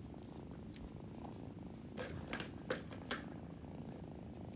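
Kitten purring steadily, with a few short rustles in the middle of the clip.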